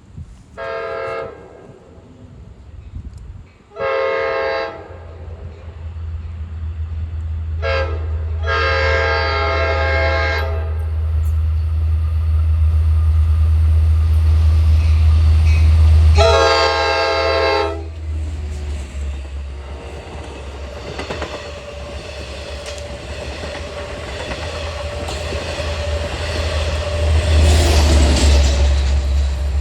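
Long Island Rail Road DE30AC diesel-electric locomotive approaching and passing, sounding its air horn in a series of blasts: two short ones, a brief toot followed by a longer blast, then one more. Under the horn the locomotive's deep diesel engine rumble builds, loudest around the last blast, then the passing train cars follow with a rising clatter of wheels on the rails.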